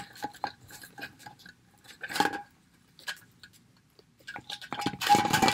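Handling noise of a plastic action figure and its gear: small clicks and rustles as a toy holster and straps are worked onto the doll's leg, with louder rubbing about two seconds in and again near the end.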